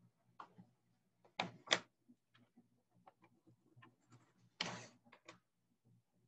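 Drawing on paper: faint scattered taps and clicks, two sharper knocks about a second and a half in, and a short scratchy stroke a little after halfway, over a faint low hum.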